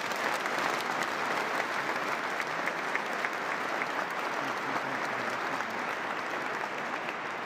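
A large congregation applauding in a cathedral nave: a dense, steady clatter of many hands, tapering off near the end.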